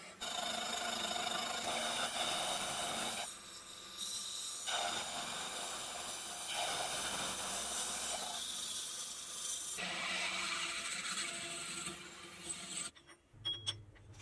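Slitting saw on a milling machine cutting a slot into a small metal block held in a vise: a steady cutting noise with several ringing tones, with a brief lull about three and a half seconds in. The cutting stops about a second before the end, leaving a few light clicks.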